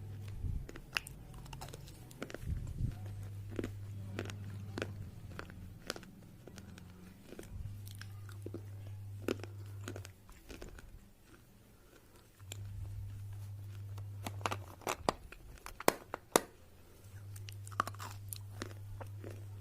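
Red slate pencils being bitten and chewed: irregular sharp crunching snaps, several loud ones together about three quarters of the way through. A low hum comes and goes underneath.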